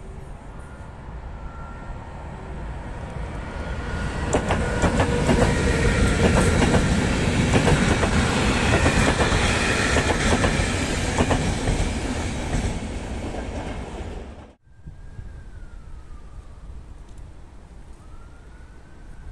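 Locomotive-hauled passenger train with blue České dráhy coaches passing close by: a rumble builds, the wheels clatter over the rail joints, and it fades. The sound cuts off abruptly about two-thirds through, after which a faint siren wails up and down.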